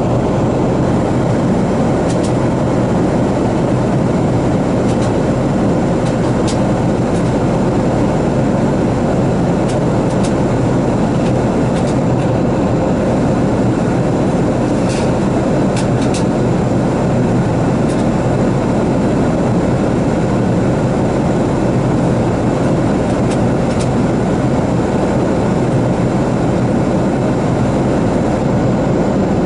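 Steady cabin noise of a Boeing 777-200 in cruise flight: the even rush of airflow and jet engines heard inside the cabin, with a few faint clicks now and then.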